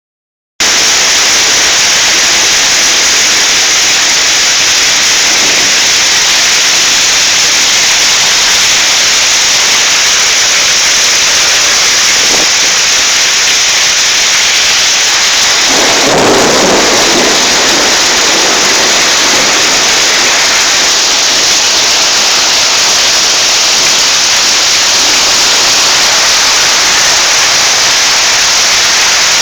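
Heavy rain pouring down in a steady, loud hiss. About halfway through, a low roll of thunder swells for a couple of seconds.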